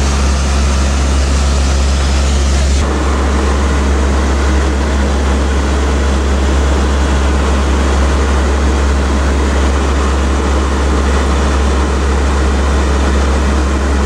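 Steady, loud drone of a C-130's Allison T56 turboprop engines and propellers, heard from inside the aircraft in cruise. The tone shifts abruptly about three seconds in.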